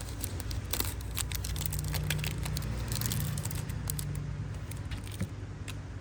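Small metallic clicks and handling noises from a Zippo lighter being turned over in the hands, scattered irregularly with a cluster about a second in, over a steady low hum.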